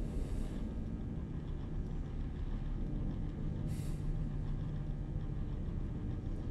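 Steady low hum of a spaceship interior's ambience, with a short hiss a little after halfway through.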